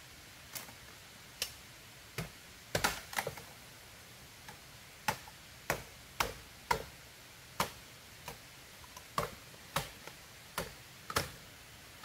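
A series of sharp knocks or taps, one or two a second and unevenly spaced, over a faint steady hiss.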